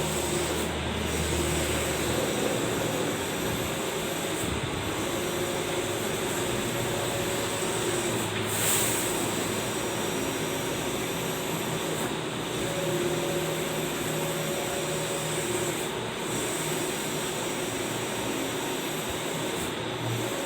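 Allwin 512i large-format printer running a print job: a steady machine whir with hum tones, and a brief recurring change about every four seconds as the print carriage makes its passes.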